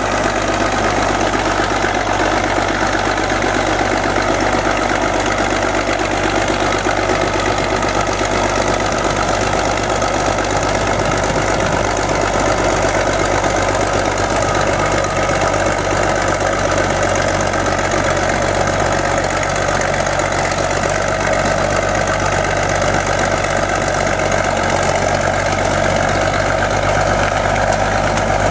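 Caterpillar D8 crawler bulldozer's diesel engine running steadily as the dozer pushes trees and brush.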